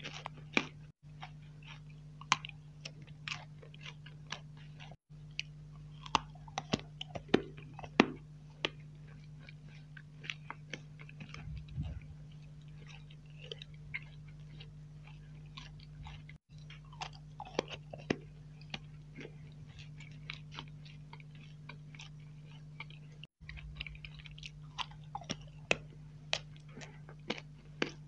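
Close-miked chewing of soft marshmallow sticks, heard as wet, sticky mouth clicks and smacks at irregular intervals, over a steady low hum. The sound drops out briefly a few times.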